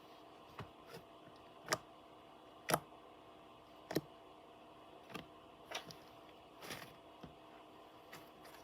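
Slime being squeezed and poked by hand, giving irregular sticky clicks and pops, about ten in all, with the loudest in the first half.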